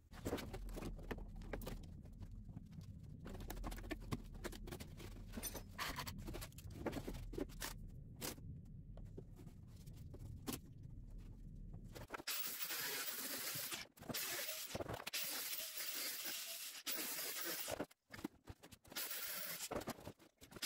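Clicks and knocks over a low hum, then from about twelve seconds in a harsh, hissing power-tool cutting noise that comes in several stretches with short breaks: the rusted floor of a car's battery box being cut away.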